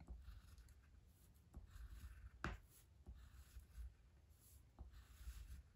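Faint scratching of a wax crayon drawing short strokes on paper, coming in several bursts, with a single light tap about two and a half seconds in.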